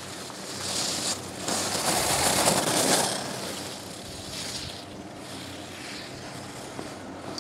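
Skis carving and scraping on packed snow through gate turns: a hissing swoosh with each turn, loudest about two to three seconds in, then weaker swooshes roughly every one and a half to two seconds.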